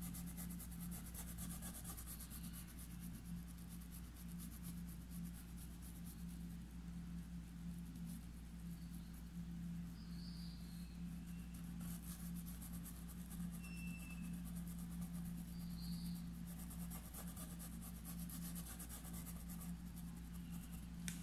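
Paintbrush bristles rubbing acrylic paint into fabric stretched in an embroidery hoop: faint, fine scratchy strokes that come and go, over a steady low hum.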